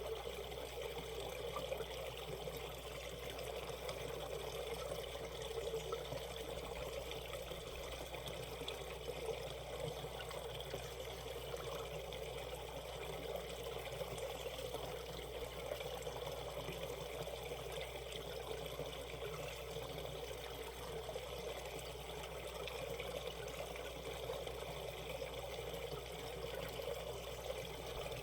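Shallow valley stream babbling steadily over rocks.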